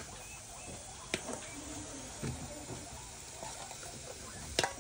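Two sharp clicks or knocks over a quiet background, one about a second in and one near the end.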